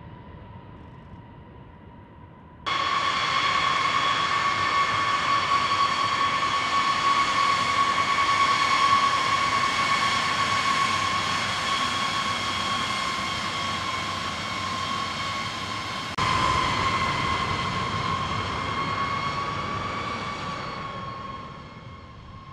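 B-52 Stratofortress jet engines whining as the bomber rolls along the runway close by: a loud steady whine of several even tones over a rushing hiss. It starts suddenly about three seconds in, after a faint distant whine, jumps again at about sixteen seconds, and fades near the end.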